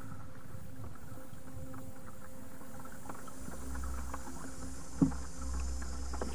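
Kayak paddling on calm water: paddle blades dipping and water lapping, with small scattered clicks. A single sharp knock comes about five seconds in, and a low rumble starts about halfway.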